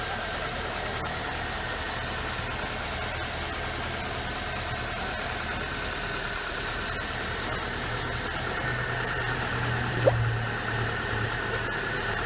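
Nissan QR25DE 2.5-litre four-cylinder engine idling steadily while its cooling system is burped after a head gasket replacement. About ten seconds in there is one short pop with a quick upward pitch, as an air bubble burps up through the coolant in the filler funnel.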